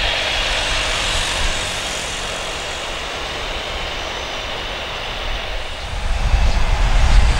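Jet engine noise from an Airbus A320-214's CFM56 turbofans as the airliner rolls along the runway: a steady hiss that is loudest in the first second or so and then eases. About six seconds in, a deeper low rumble comes in and grows louder.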